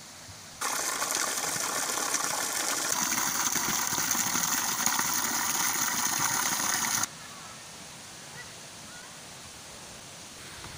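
Rushing, pouring water that starts suddenly about half a second in, grows a little louder about three seconds in, and cuts off abruptly about seven seconds in. Afterwards only faint outdoor ambience remains.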